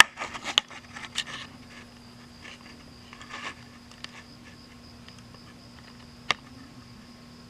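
Night insects trilling as a steady high tone over a low steady hum. Rustling and clicks come in the first second and a half, and a single sharp click sounds about six seconds in.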